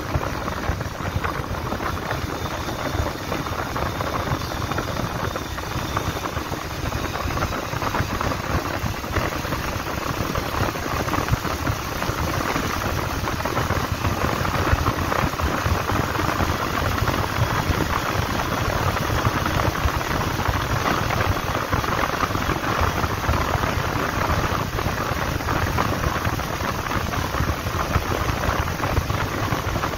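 Steady wind rush and road noise from a Bajaj Pulsar 150 motorcycle ridden at about 60 km/h, buffeting the handlebar-mounted camera's microphone, with the single-cylinder engine faint beneath it.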